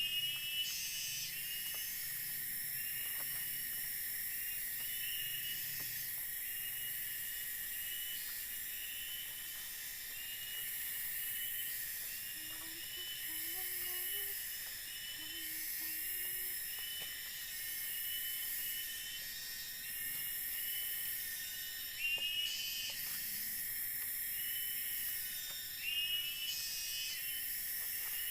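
Steady shrill chorus of forest insects, with short chirps repeating every second or so over a continuous high buzz.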